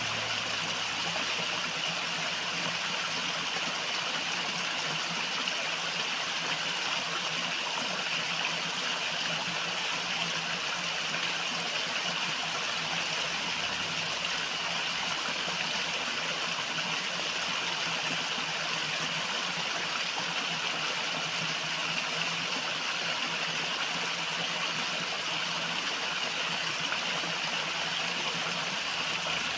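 River water flowing over rocks: a steady rushing, babbling stream.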